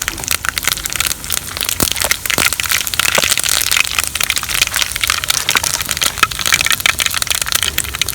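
Mustard seeds spluttering in hot ghee in a kadai: a dense, fast crackle of small pops that starts suddenly and stays busy throughout.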